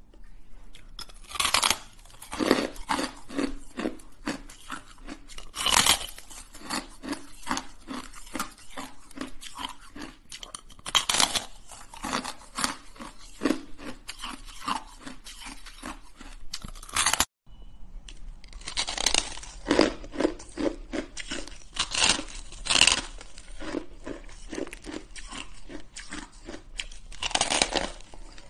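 Hard ice being bitten and chewed close to the microphone: repeated loud, sharp crunches and cracks with grinding chewing in between. The sound drops out for a moment about two-thirds of the way through, then the crunching starts again.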